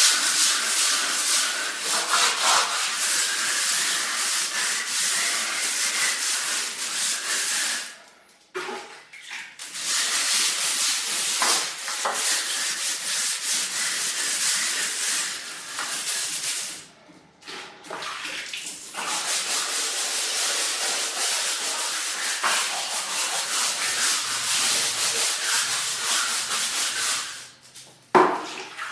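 Stiff bristle brush scrubbing a bathroom surface in quick back-and-forth strokes, a steady hiss of rubbing. It breaks off briefly twice in the middle and again near the end.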